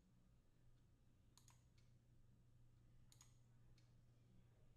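Near silence: a low steady hum with faint computer mouse clicks, a few of them spaced about a second and a half apart.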